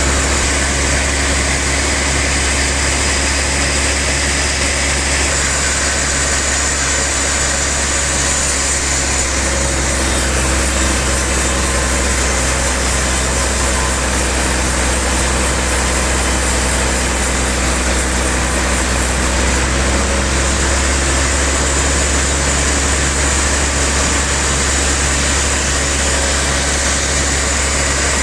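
Sawmill band saw machinery running steadily, a constant low hum under a dense hiss.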